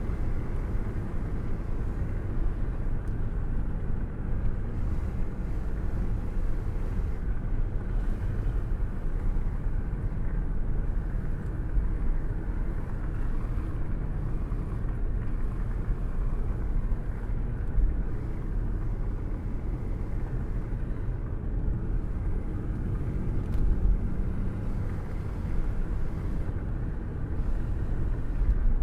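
Steady rain with a deep, continuous low rumble of a thunderstorm, mostly low in pitch with little hiss and no sharp thunderclap.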